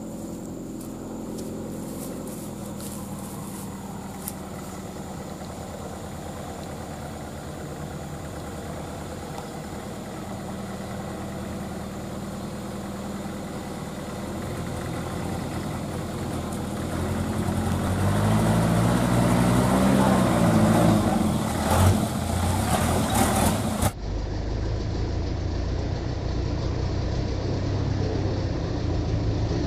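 Diesel engine of a 4x4 Ragasa light truck running steadily, rising and falling in pitch as it is revved around the middle, then settling back to a steady run.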